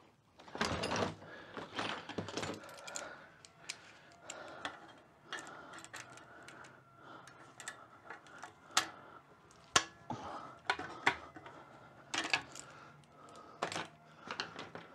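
Hand tools clicking and tapping on the front of an air-cooled VW Beetle engine as the sheet-metal cooling tins are unbolted: scattered metallic clicks and taps, with a few sharper knocks in the second half.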